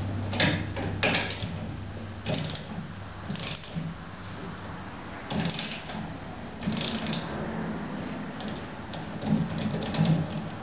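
Hand ratchet and socket clicking in short, irregular bursts as it swings back between strokes, tightening the U-bolt nuts that clamp a trailer axle to its leaf spring.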